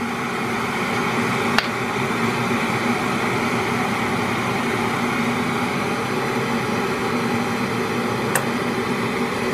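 Electric kettle heating up: a steady rushing noise with a low hum, growing slightly louder at the start. Two sharp clicks cut through it, one about a second and a half in and one near the end.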